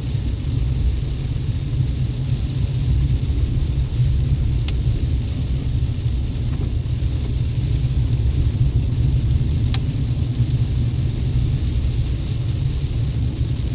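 Chevrolet Colorado Z71 pickup driving, a steady low rumble of engine and road noise, with a couple of faint clicks.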